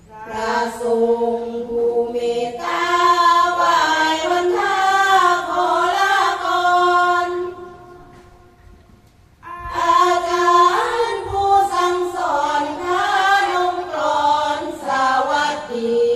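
A women's sorapanya troupe singing a Thai Buddhist chant together in two long phrases, with a pause of about two seconds between them. The first phrase opens on a held note before the melody starts to move.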